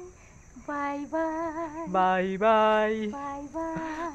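A woman singing unaccompanied, holding long, slightly wavering notes. A lower second voice sings along with her for a stretch in the middle.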